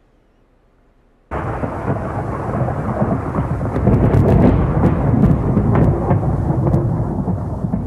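Near silence for about a second, then a recorded thunderstorm starts abruptly: a continuous rolling rumble of thunder with several sharp cracks through it.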